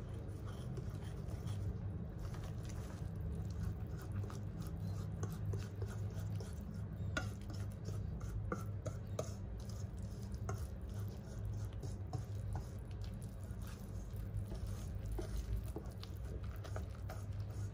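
Light clicks, taps and scrapes of kitchen utensils being handled during home baking, scattered irregularly over a steady low hum.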